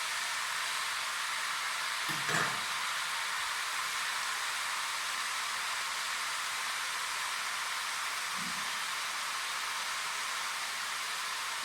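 Food sizzling steadily in hot oil in a pan, with one light knock about two seconds in.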